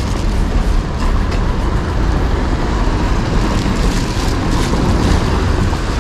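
Traffic on a rain-wet street: a steady hiss of tyres with a low rumble.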